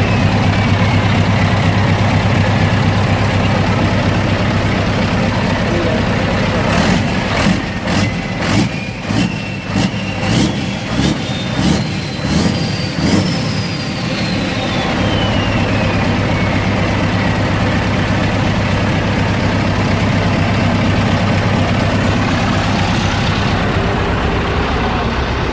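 Scania V8 truck engine with an open exhaust pipe idling, then revved in a rapid series of throttle blips about halfway through, the turbo whistle climbing in steps with each blip. It then drops back to idle while the turbo whistle falls slowly away.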